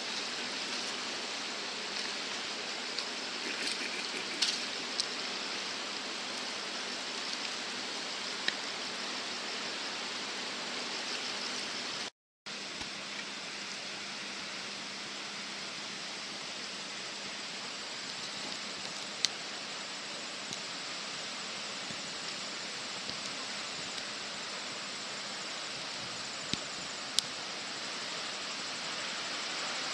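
Steady rush of a river running high in flood, a few faint clicks on top; the sound drops out completely for a split second about twelve seconds in.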